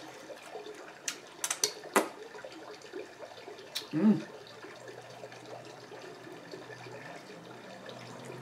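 Wet eating sounds from a seafood boil, with chewing and finger-licking, and a few sharp clicks from handling crab shells in the first half. A short hummed 'mm' about four seconds in.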